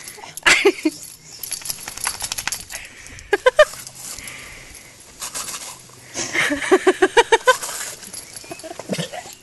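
Metal clinking and jingling from a young whippet's leash clip and collar as it leaps and snaps at a garden hose spray, with the soft hiss of the spray nozzle. Bursts of a person's voice, the longest about two-thirds of the way through.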